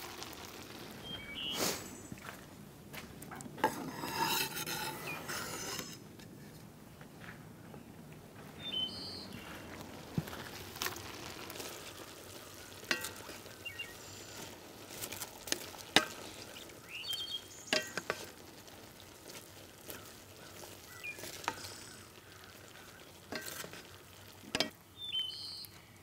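A spoon stirring chili in a Dutch oven, with scattered sharp clinks and knocks of the spoon against the pot and a longer run of stirring a few seconds in.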